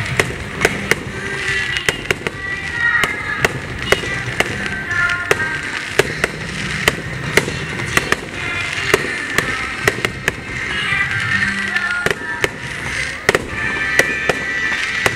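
Aerial fireworks bursting overhead: sharp bangs in quick, irregular succession, about two a second.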